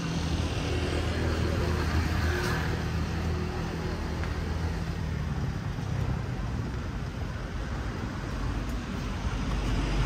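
A motor engine running close by, its low hum strong for the first five seconds or so and then fading away, over steady outdoor traffic noise.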